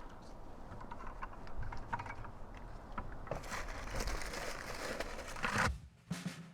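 Gutter debris of leaves and muck rustling and crackling as it is scooped by hand into a bucket, with scattered small clicks and a denser stretch of rustling in the second half.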